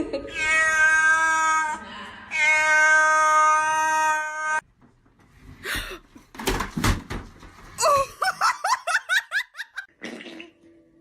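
Cat yowling in two long, drawn-out, steady-pitched calls. A few knocks follow about six seconds in, then a quick run of short chirping calls.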